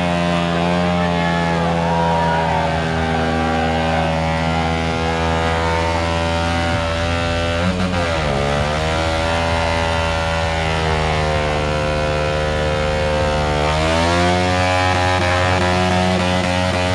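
Stunt motorcycle engine held at high, steady revs during a burnout, dipping briefly about eight seconds in and climbing back, then rising a little in pitch near the end.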